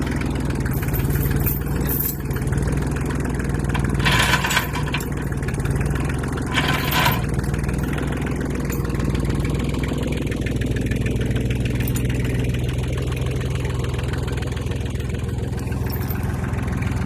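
Tractor engine idling steadily, with two short bursts of clatter about four and six and a half seconds in.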